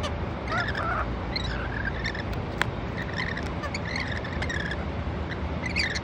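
Rainbow lorikeets chattering in short, high squeaky chirps, scattered throughout, over a steady low hum. A single sharp click about two and a half seconds in.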